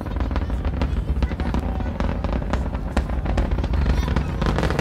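Falcon Heavy's rumble reaching the stands from its 27 Merlin engines in ascent: a loud, continuous deep rumble laced with dense, sharp crackling pops.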